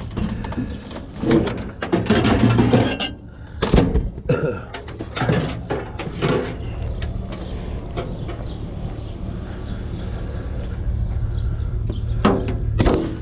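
Rummaging through dumpster junk: items clattering, knocking and rustling as they are shifted by hand for the first several seconds. After that comes a steadier low hum with only scattered knocks, and a sharp knock near the end.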